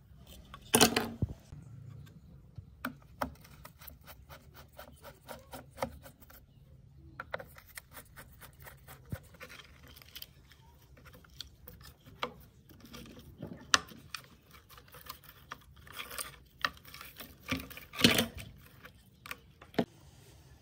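Irregular clicks, taps and rattles of hoverboard parts being handled by hand: circuit boards, plastic casing and wire connectors knocking against each other and the shell, with louder knocks about a second in and again near the end.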